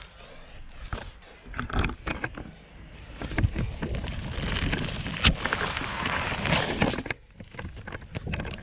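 Off-road inline skates on large 150 mm wheels rolling and crunching over a dirt trail, with scattered clicks from twigs and grit. The rolling gets louder from about three and a half seconds in, with one sharp snap about five seconds in, and drops off around seven seconds.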